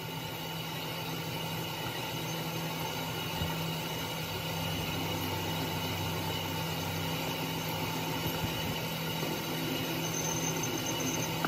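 Workshop machinery running steadily, a constant low hum with several thin high whining tones over it.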